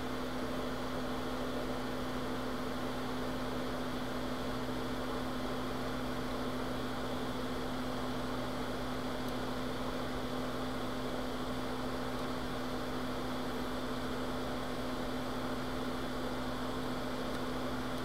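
Steady electrical hum with an even blowing hiss from a hot-air rework station running while PS5 HDMI port pins are soldered.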